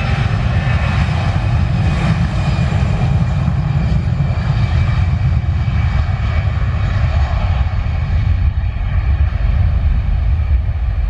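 Airbus A319's twin CFM56 turbofan engines at takeoff power during the takeoff roll: a loud, steady deep rumble with a hiss and faint fan whine above it, the higher part thinning in the last few seconds.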